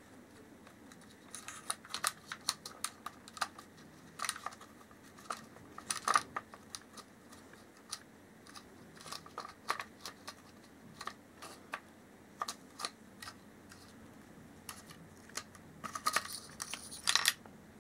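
Scattered clicks and taps of small parts being handled and fitted into a Remington Nylon 66 rifle's nylon receiver during reassembly, with a short scraping rustle near the end.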